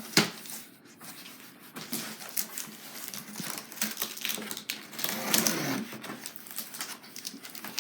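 A large cardboard shipping box being opened by hand: irregular clicks, knocks and the rustle of cardboard and packaging, with a sharp knock right at the start.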